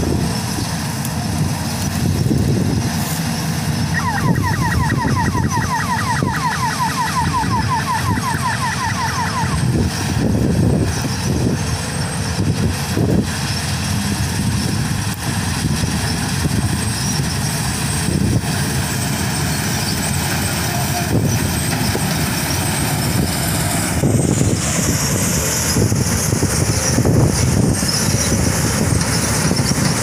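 Sunshine 1100 combine harvester running as it harvests wheat: a steady, loud engine and machinery din. About four seconds in, a rapid run of high chirps, roughly five a second, lasts for five or six seconds.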